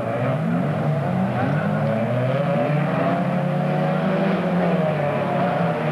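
Several folkrace cars racing together on a dirt track, their engines revving, with overlapping pitches that rise and fall as the drivers go on and off the throttle.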